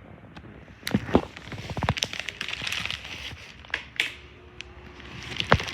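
Sharp plastic clicks and knocks from handling a Mondial Maxi Power 30 electric fan, with a quick rattle of clicks about a second and a half in and a rush of air noise between the knocks.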